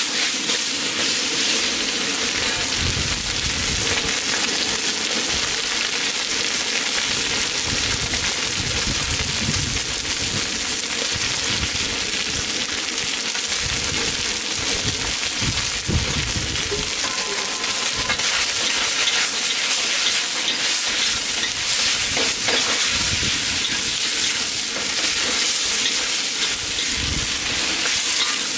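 Marinated chicken pieces sizzling steadily in a hot seasoned wok, with a metal wok spatula scraping and tossing them at irregular moments.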